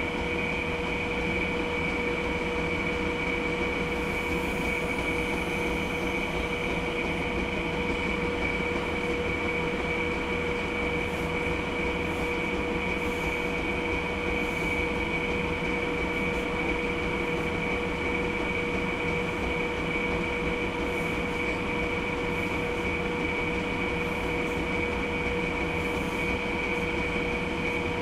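A steady mechanical hum with several constant whining tones, with faint scratching now and then from a graphite pencil drawing on sketchbook paper.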